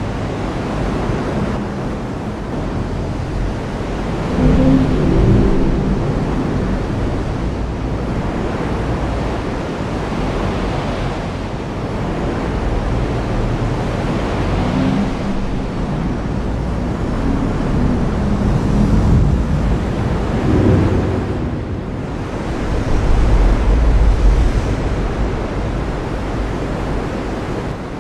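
Heavy rain falling steadily, with low rolling rumbles of thunder that swell up and die away several times.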